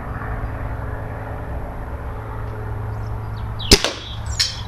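A single shot from a .22 Crosman Nitro Venom gas-ram air rifle about three-quarters of the way in: one sharp crack over a steady low rumble. Under a second later comes a fainter second click.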